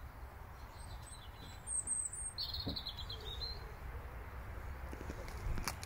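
Birds calling outdoors: a short high call about two seconds in, followed by a rapid trill lasting about a second. A couple of sharp clicks and a steady low rumble lie underneath.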